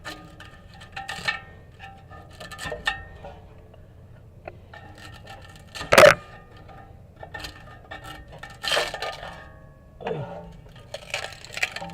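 Metal clinks, scrapes and knocks at an exhaust pipe as an old, failed leak patch is worked off, some of the clinks ringing briefly, with one sharp loud knock about six seconds in.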